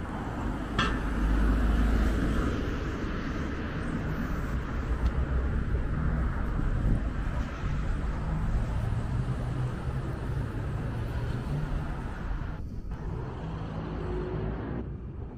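Town street ambience with car traffic passing, heaviest as a low rumble a second or two in, and a single sharp click about a second in.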